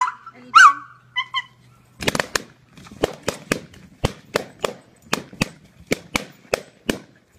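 Red rubber balloons being burst one after another by a small dog: a rapid, irregular run of sharp pops, about two or three a second, starting about two seconds in. A short high-pitched sound comes first, near the start.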